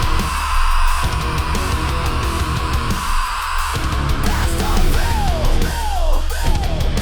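Instrumental break in a heavy rock song: a lead electric guitar holds one long note, then plays a run of short falling slides near the end, over bass and drums.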